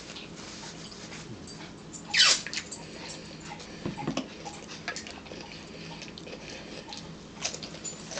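A dog whimpering, with one loud high whine about two seconds in that falls in pitch, over light crinkling of a paper napkin.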